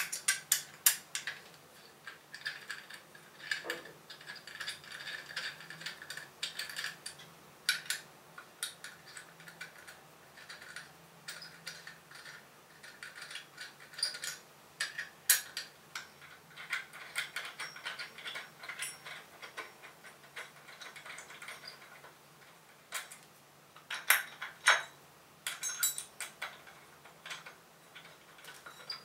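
Screws being backed out of the plastic base of a telescope mount head with a small hand tool: irregular metal clicks and ticks, with stretches of scraping as the screws turn.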